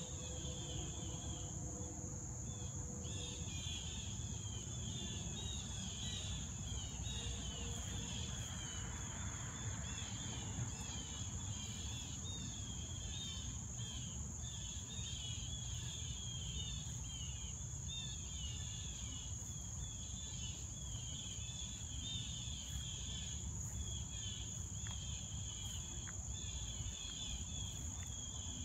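Steady high-pitched insect drone with continuous rapid chirping, over a low background rumble.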